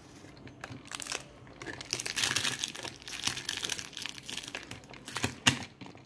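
Plastic wrapping crinkling and rustling as a plastic toy capsule is handled, with a few sharp clicks and knocks of the hard plastic case, the loudest one near the end.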